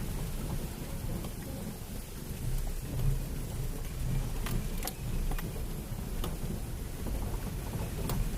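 Rushing water of a small waterfall or rocky stream: a steady noise with a low rumble underneath and a few faint clicks.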